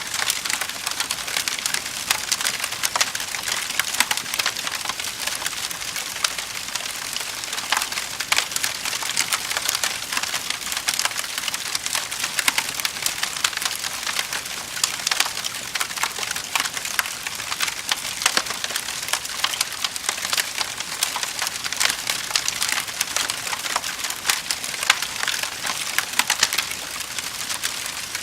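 Wood fire in a fireplace crackling steadily, with a constant hiss and many small irregular pops and snaps.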